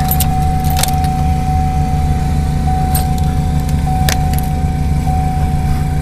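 Steady low hum of a running engine under a constant high tone, with keys jingling a few times.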